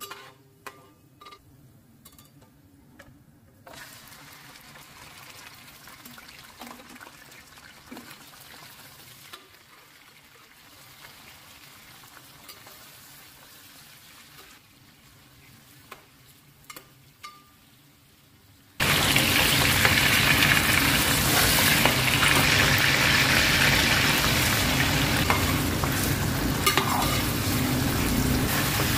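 Chicken pieces frying in hot oil in an aluminium pot while being stirred with a spoon. At first a faint sizzle with a few clinks of the spoon against the pot; about 19 seconds in, a sudden loud, steady sizzle.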